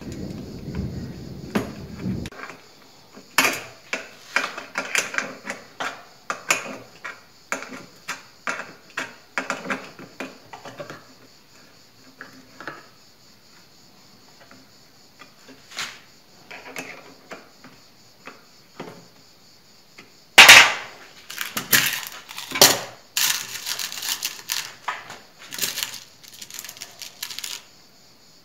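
A spanner and steel nuts and bolts clinking against the 2 mm steel angle-bar legs of a table-saw stand as they are bolted on: a brief low rumble at first, then a run of light metallic clicks, a quiet stretch, and a louder clatter of metal parts over the last several seconds.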